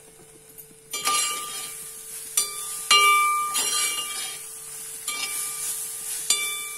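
Metal spatula stirring and striking the side of a brass cooking pot, about six clinks that each ring out like a bell, the loudest near the middle. The spiced mix frying in ghee sizzles faintly underneath.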